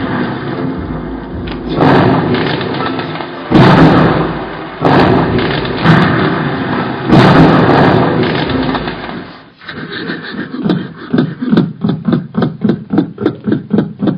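Percussive stage-show soundtrack: a dense, noisy texture broken by loud swelling hits about every two seconds, then, after a sudden drop about nine seconds in, a fast run of sharp pulses about four or five a second.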